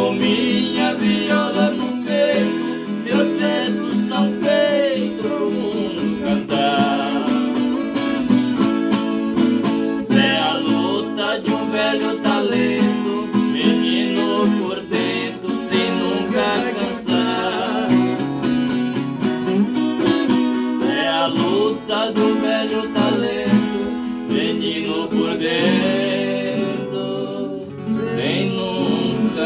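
Music led by a plucked viola caipira, the Brazilian ten-string guitar, playing melodic lines over a steady accompaniment.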